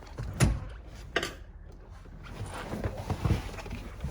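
Knocks and bumps of someone climbing up into a truck cab: two sharp knocks about half a second and a second in, then low rumbling thuds of movement.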